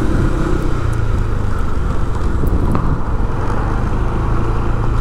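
A motor vehicle engine running steadily, a low even hum mixed with road and wind noise.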